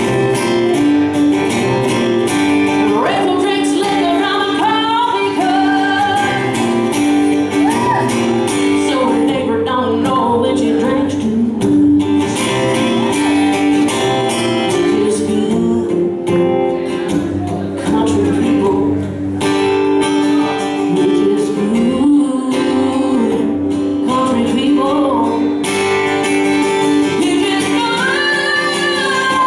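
Live country music: a woman singing with guitar accompaniment.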